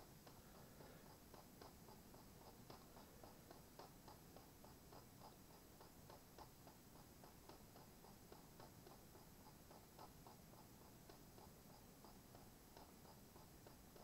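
Faint, light clicking, a few clicks a second and slightly uneven, of scrolling through a file on a computer.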